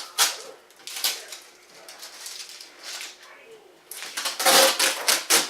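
Adhesive tape being peeled and ripped off the plastic body of a TIKO 3D printer, in several short rasping pulls and a longer, louder tear near the end.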